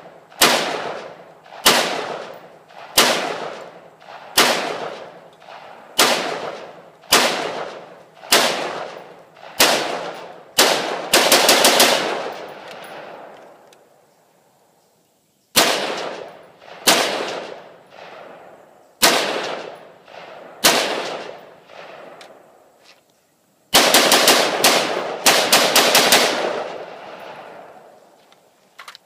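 Rifle shots from an AR-15, fired one at a time about every second or so, each with a short echo; about 11 seconds in comes a quick string of rapid shots, then a short pause, more single shots, and a second, longer rapid string near the end.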